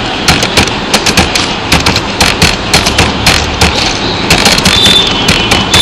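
Quick, irregular clicks of keys on a computer keyboard as a line of text is typed, over a steady hiss.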